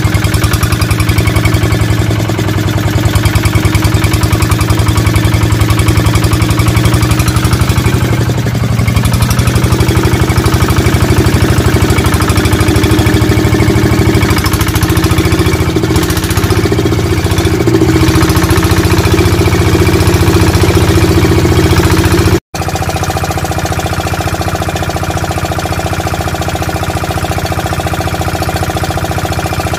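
Single-cylinder diesel engine of an Alkon NS 150 water-pump set running steadily with a fast, even chug, just after being taken apart and reassembled. About three-quarters of the way in it cuts out for an instant and comes back a little quieter.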